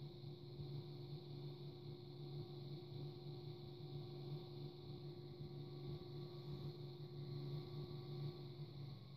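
Electric potter's wheel running with a steady low hum as a clay cup is thrown on it.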